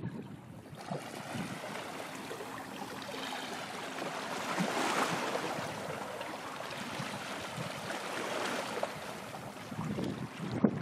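Ambient waterside noise: water washing and wind on the microphone, swelling about halfway through.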